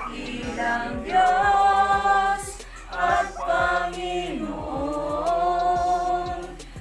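A group of voices singing a worship song a cappella, holding long notes in slow phrases.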